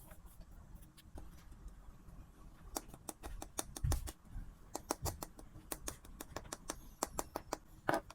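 Irregular sharp clicks and taps, sparse at first and then coming thick and fast, with a couple of soft low thumps near the middle.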